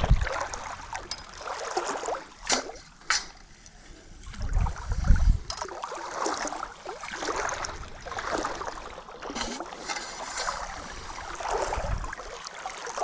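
Wading through ankle-deep seawater: water sloshing and trickling around the legs in uneven swells. A couple of sharp clicks come about two and a half to three seconds in, and a low thump at about five seconds.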